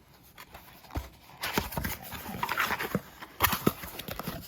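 A package being unboxed by hand: irregular knocks, taps and rustling of the box and packing, with a sharper knock about three and a half seconds in.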